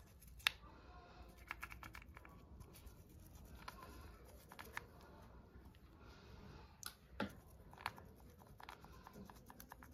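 Faint handling noises of a wet plastic toy piece being rubbed and squeezed in the fingers over a bowl of water: soft rustles and scattered small clicks, a sharper click about half a second in and a few more past the middle.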